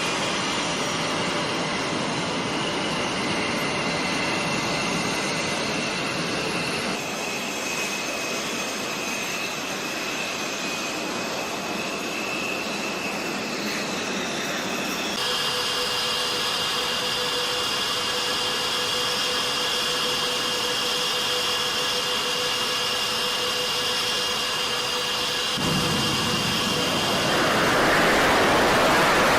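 Fighter jet engines running: a steady high whine over a rushing noise, which changes abruptly twice. Near the end a louder rushing noise swells in.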